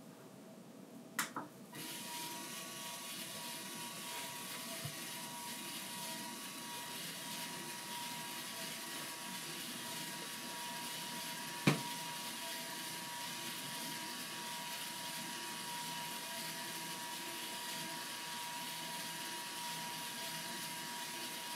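A click as the Lego battery box's button is pressed, then a small Lego electric motor and Technic gear train start up and run steadily with a high, even whine, turning a Reuleaux-triangle rotor. One loud sharp click sounds about halfway through.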